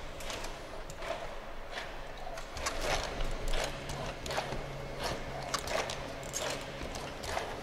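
A powered exoskeleton walking on a stone floor with forearm crutches: irregular clicks and taps of crutch tips and feet, about one or two a second, echoing in a large hall. A low steady mechanical hum joins about three seconds in.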